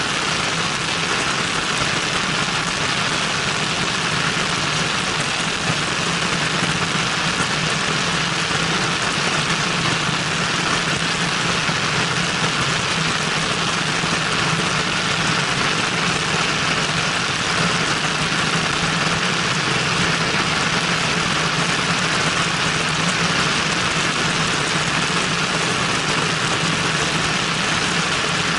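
Cessna 172N's four-cylinder Lycoming engine and propeller running steadily in flight, a constant low drone under heavy wind rush over a camera mounted outside the aircraft.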